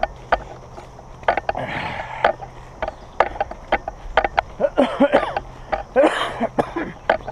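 Irregular clicking and creaking of a heavy backpack's straps and gear while walking, with footsteps. Three short bursts of hard breathing come in, about 2 s, 5 s and 6 s in.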